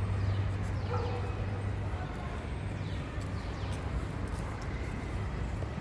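City street ambience: a steady low rumble of traffic, with a few faint, short animal calls falling in pitch about a second in and again around three seconds in.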